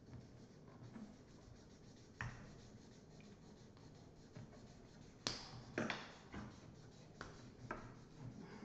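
Felt-tip markers scratching faintly on paper as two children colour, with several sharp clicks and taps, the loudest about halfway through.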